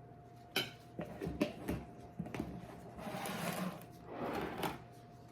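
Food-prep handling at a kitchen counter: several light clicks and knocks, then two short scraping, rustling passes near the end.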